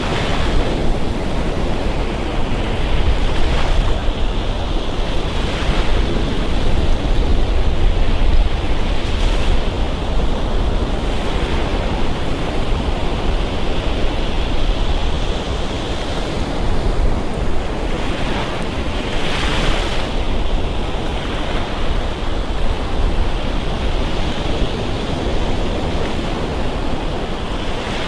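Surf breaking and washing up on a sandy beach in a continuous rush, with swells as individual waves come in, under a low rumble of wind on the microphone.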